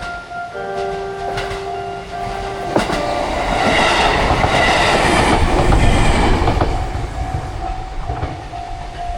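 Level crossing alarm ringing with a steady repeating tone while an Iida Line electric train sounds its horn for about two seconds. The train then runs over the crossing with its wheels clacking on the rails, loudest about five to six seconds in, before fading while the alarm keeps ringing.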